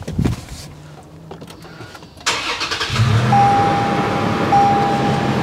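2020 Toyota 4Runner TRD Pro's 4.0-litre V6 starting about two seconds in and settling into a steady idle, with a thin steady high tone over the idle.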